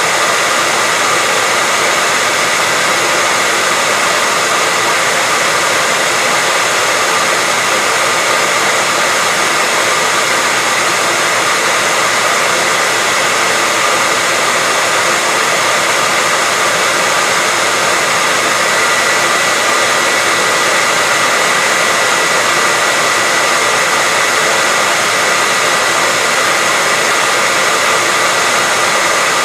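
Hair dryer running steadily, a constant rush of air with a steady high whine from the motor.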